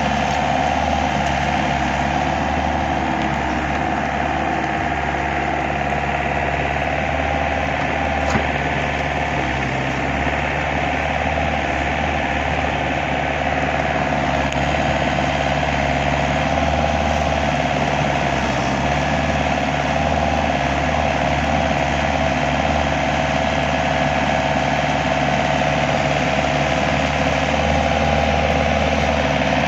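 A motor running steadily at a constant pitch, with one brief click about eight seconds in.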